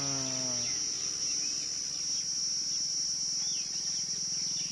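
Steady, high-pitched drone of insects, a chorus that holds an unbroken pitch without pause.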